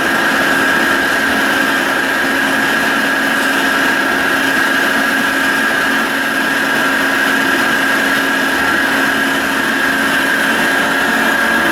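Carlton Model 4A radial arm drill press running under power, a steady machine hum with a constant high whine that holds unchanged throughout.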